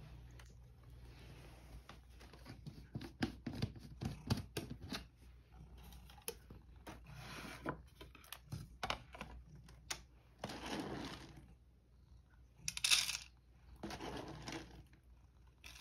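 Cat food being portioned out: a run of small clicks and clinks like dry food rattling, then several short bursts of rustling like a food bag being handled.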